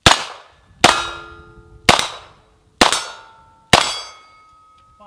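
Five handgun shots about a second apart, fired at steel targets. Most shots are followed by a lingering metallic ring as the steel plates are hit.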